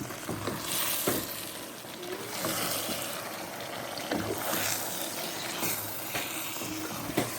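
Garden egg and spinach sauce cooking in a pot on a gas stove, with wet bubbling and stirring sounds. A utensil clicks against the pot a few times.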